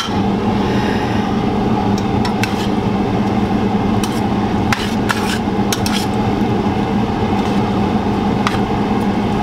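Metal tongs clinking and scraping against a stainless steel skillet as noodles and tofu are tossed, about a dozen scattered clicks. A steady low hum runs underneath.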